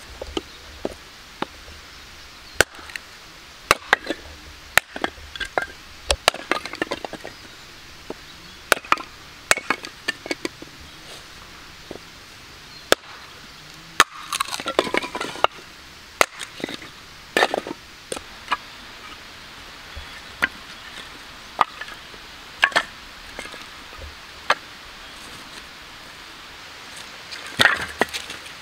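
A hatchet splitting firewood on a chopping block: sharp chops of the steel head into the wood at irregular intervals of a second or two, with short clusters of lighter knocks as split pieces fall and are gathered.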